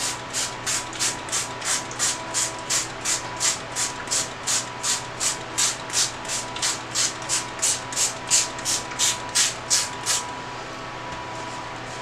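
Hand trigger spray bottle squirting water onto the dry sphagnum moss of an orchid's cork-bark mount. Rapid, even squeezes, about three or four a second, stop about ten seconds in. A steady hum runs underneath.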